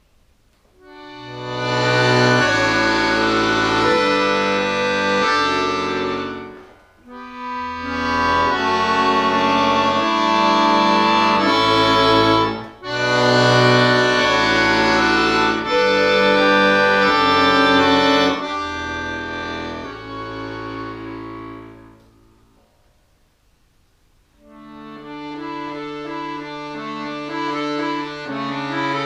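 Solo chromatic button accordion playing held chords under a melody. The playing starts about a second in and stops briefly twice. It then fades out to about two seconds of silence before starting again near the end.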